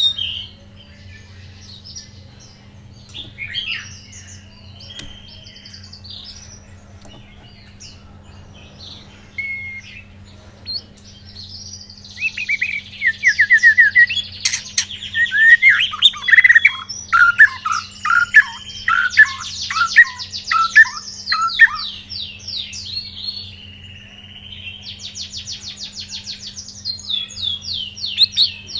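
White-rumped shama singing. Scattered short whistles and calls give way, about twelve seconds in, to a loud, rapid run of varied whistled phrases and fast trills. More trills come near the end.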